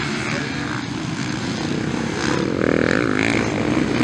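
Motocross dirt bike engines running hard and revving as bikes race over a bumpy dirt track, louder from about two and a half seconds in as a bike comes closer.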